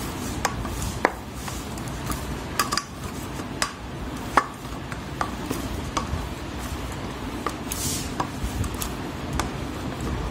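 Hands kneading a stiff wheat-flour dough in a stainless steel plate: a soft pressing and rubbing, with short sharp metallic clicks about once a second as the dough and hands knock against the plate.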